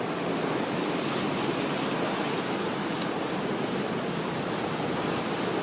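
Steady, unbroken rushing noise of a large waterfall.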